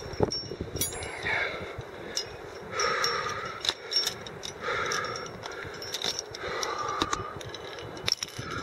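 Carabiners and cams on a climbing harness clinking in short irregular clicks, with repeated breaths from the climber.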